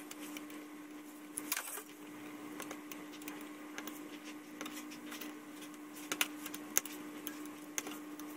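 X-Acto hobby knife blade scraping and ticking against a thin photo-etched brass fret as small parts are cut free, with scattered sharp clicks over a faint steady hum.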